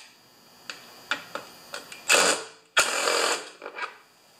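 Cordless drill-driver backing out cover screws. It runs in two short bursts, one a little after two seconds in and a slightly longer one about three seconds in, with light clicks and knocks of handling in between.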